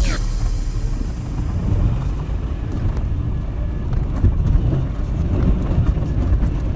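2003 Toyota Highlander's V6 engine and tyres rumbling as it drives off-road, with a few louder knocks around four to five seconds in.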